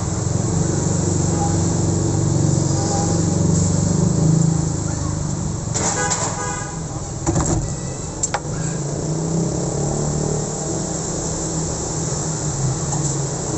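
Street traffic: motorcycle and minibus engines running steadily, with a vehicle horn sounding for about a second around six seconds in, followed by a couple of short clicks.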